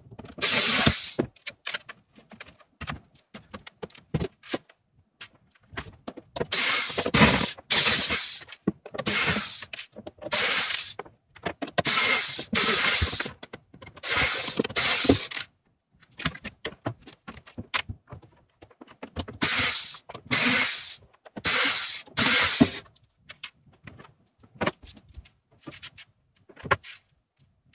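Corded electric drill-driver run in repeated bursts of about a second, backing screws out of a wooden bed frame, with clicks and knocks of wood and screws between bursts.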